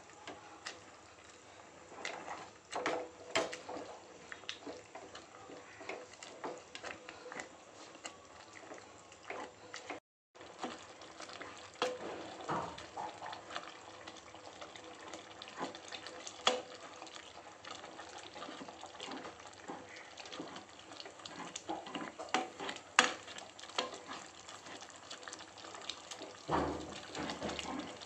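A wooden mathu (dal masher) pounds and churns cooked green gram in a metal pot, making wet squelching and sloshing sounds. Irregular sharp knocks come throughout, with one louder knock near the end.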